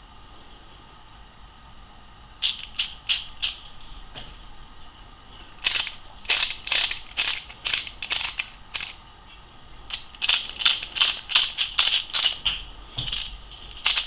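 LED flashlight switches clicked over and over in quick runs of sharp clicks, cycling the lights through their modes.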